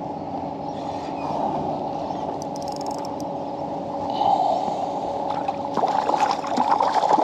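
A hooked fish, taken for a trevally, splashing and thrashing at the water's surface beside a kayak as it is led to the landing net. The irregular splashes start about two thirds of the way in, over a steady low hum.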